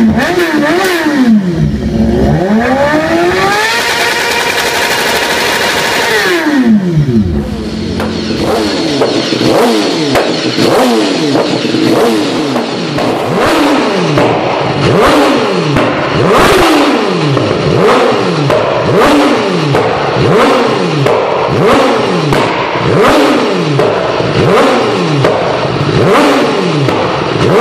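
BMW S1000RR's 999 cc inline-four with an Akrapovic exhaust revved while standing still. It gives a few long revs rising and falling at first, then quick throttle blips about once a second, with sharp crackles as each one falls away.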